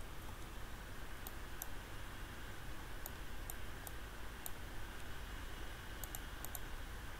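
Computer mouse button clicks, about ten short sharp clicks in small clusters and quick pairs, over a faint steady low hum.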